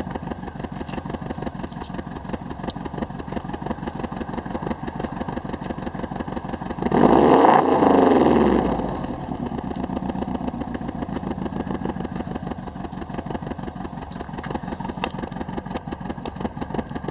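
2002 Subaru Impreza WRX's turbocharged flat-four engine idling with a misfire. About seven seconds in, the throttle is blipped once: the revs rise and fall back to idle within about two seconds.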